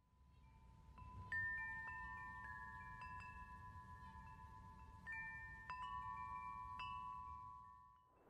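Soft chime tones struck one after another, about nine strikes, each left ringing in long overlapping notes that die away shortly before the end.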